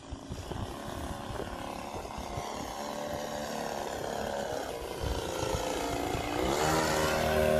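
Combustion engine of a radio-controlled model Piper Cub running in flight, a steady buzzing drone that grows louder as the plane flies in low and close, loudest near the end.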